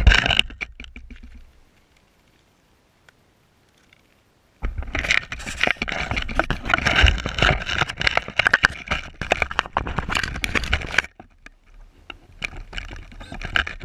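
A sharp knock as the helicopter with its camera is set down on gravel. After a few seconds of near silence comes several seconds of dense crackling and scraping close to the camera, handling noise with no motor running, and a shorter burst of the same near the end.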